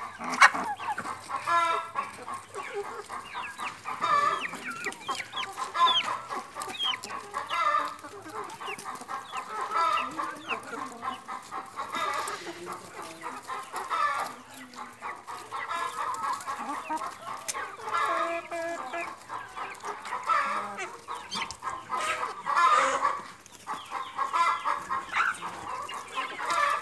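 A flock of domestic hens clucking and calling over and over while feeding: short, overlapping calls, one after another.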